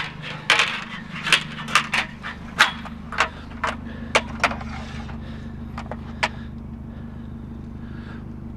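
Pieces of scrap aluminum clanking and clicking as they are handled: about a dozen sharp knocks in the first five seconds, then a few more spaced out, over a steady low hum.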